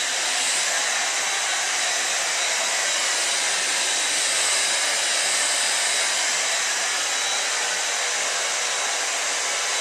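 Handheld hair dryer with a mesh net diffuser on its nozzle, running steadily as it warms hair set in rollers: an even rushing hiss with a faint high whine.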